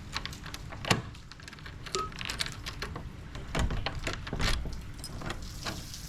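Scattered clicks and knocks of objects being handled in a small room. The sharpest knock comes about a second in, and a few heavier thuds follow near the middle.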